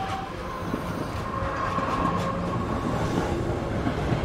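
Subway train pulling into a station, running noise steady throughout, with a thin high whine through the middle.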